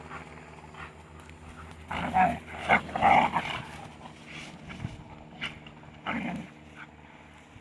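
Two young shepherd dogs play-fighting, snarling and growling in short irregular bursts that sound like two snarling pigs. The loudest flurry comes about two to three and a half seconds in.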